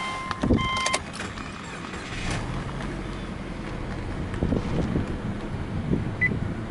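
A chiming dash warning tone sounds for about the first second. Then the Subaru EJ20 turbocharged flat-four starts from cold and settles into a steady idle at about 1000 rpm, with a short beep near the end.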